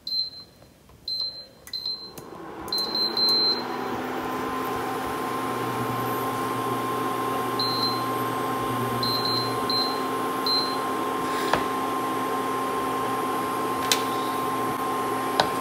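Portable induction cooktop's touch controls beeping as its buttons are pressed: several short high beeps in the first few seconds and a few more around eight to eleven seconds in. From a couple of seconds in, the cooktop's cooling fan and coil run with a steady hum.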